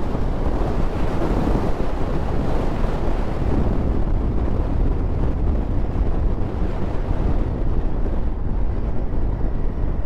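Wind rushing over the microphone of a moving motorcycle, a steady loud rumble with no let-up.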